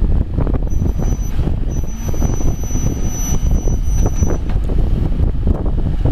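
Caterpillar 420F backhoe loader's diesel engine running with a steady low rumble, mixed with wind buffeting the microphone. A thin, high whine sounds over it briefly early on, then again for a few seconds in the middle.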